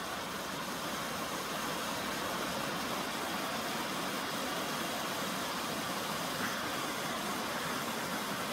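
A river waterfall's cascades and rapids, a steady rushing of falling water.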